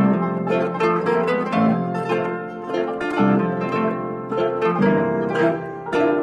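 Background music: a melody of quick, plucked string notes.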